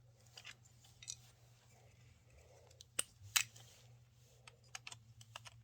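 Plastic pieces of a Rusty Rivets toy motorcycle and jetpack being handled and clicked together. There are light scattered clicks, two sharper ones about three seconds in and a few small ones near the end.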